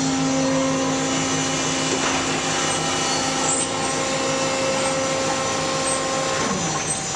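Industrial closed-door baler running through its compression cycle: a steady machine hum and whine from its hydraulic power unit, with a pulsing low note. About six and a half seconds in, the tones shift and a low pitch falls away as the cycle changes over.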